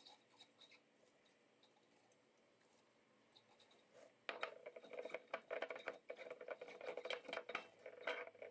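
Thin green kıl peppers being pushed tightly into a glass jar: faint ticks at first, then from about four seconds in a dense, crackling rustle of pepper stems and skins rubbing and squeaking against the glass.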